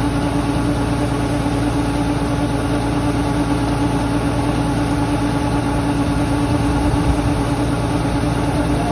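An engine running steadily at an even speed, with a constant hum that does not rise or fall.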